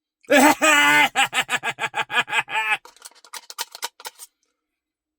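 A man's wordless, exaggerated vocal noise: a loud cry, then a quick run of pitched pulses at about five a second, trailing off into softer short clicks.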